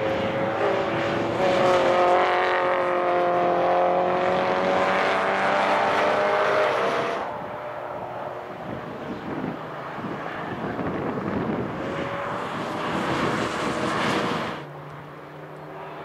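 Racing car engines at high revs passing one after another, several engine notes at once in the first half. Later a single car's noise swells as it comes by and cuts off suddenly near the end, with wind noise on the microphone throughout.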